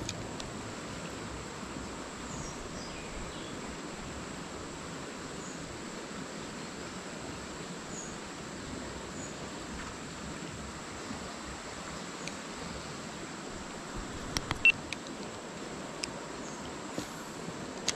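Steady rush of river water with a constant high-pitched insect drone over it. A few sharp clicks sound in the last few seconds.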